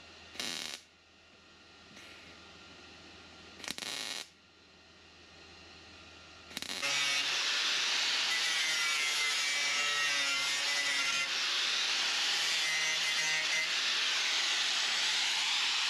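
Two short bursts of welding, one near the start and one about four seconds in. Then, about seven seconds in, an angle grinder starts and grinds steadily against steel, knocking down fresh welds on a rust patch in a 1968 Mercury Cougar's rear-window channel.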